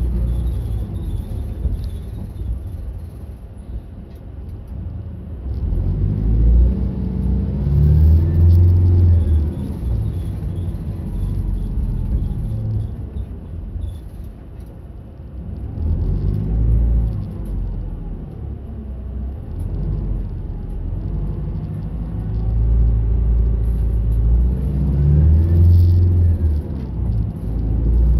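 Route bus's diesel engine and road noise heard from inside the cabin. The engine note climbs and falls back three times as the bus accelerates through its gears, easing off in between.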